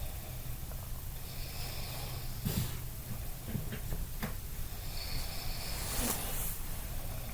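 Someone asleep and snoring: slow, breathy snores with louder bursts of breath about two and a half seconds and six seconds in.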